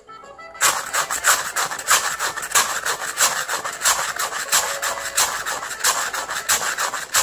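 Hand-played rasping scrapes on improvised percussion, starting about half a second in and running in a steady güiro-like cumbia rhythm of about three strong strokes a second with lighter ones between.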